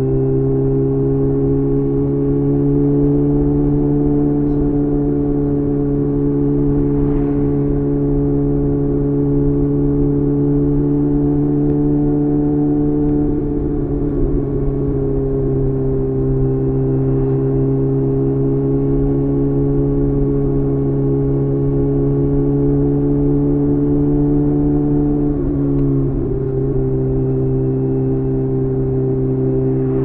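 Kawasaki ZX-6R's inline-four engine through a Leo Vince aftermarket exhaust, cruising at steady revs. The engine note dips briefly twice, about halfway through and again near the end.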